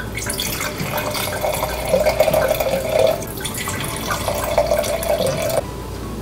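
White wine pouring from a bottle into stemmed wine glasses, first one glass and then the other, with a short break about three and a half seconds in; the pouring stops suddenly near the end.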